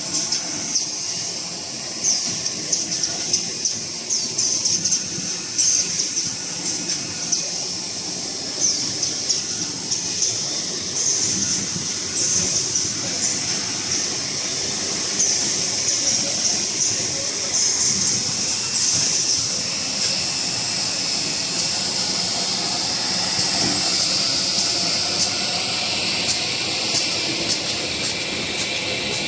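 A small toilet paper making machine running: a steady high hiss with a constant scatter of quick clicks and ticks.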